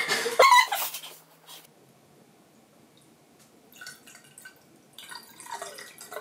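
Liquid poured from a bottle into a glass carafe packed with ice, splashing and trickling over the ice in two spells, the second from about five seconds in. A short burst of voice sits at the very start.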